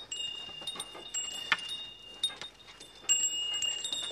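Small pilgrims' bells jingling with the walkers' steps: irregular strikes a couple of times a second, each ringing on with a clear high tone.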